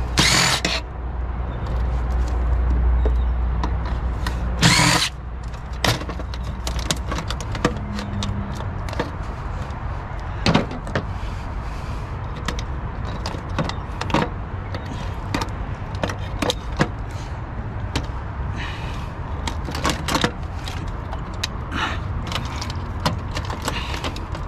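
Hand tools clicking and knocking against the metal and plastic parts of a scrapped printer as a circuit board is worked loose, with two longer harsh scraping bursts, one at the start and one about five seconds in, over a steady low rumble.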